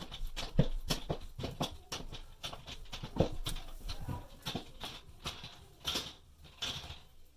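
Molly bolt being screwed tight into drywall: irregular clicks and scraping crunches as the screw turns and the anchor's legs pull up against the back of the drywall, thinning out toward the end as it snugs tight.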